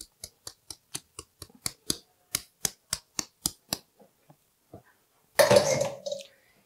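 Cornstarch being sifted through a stainless-steel fine-mesh sieve over a steel mixing bowl: the sieve is tapped in a steady rhythm, about four light metallic ticks a second, for about four seconds. After a few scattered ticks comes one louder, longer clatter about five and a half seconds in.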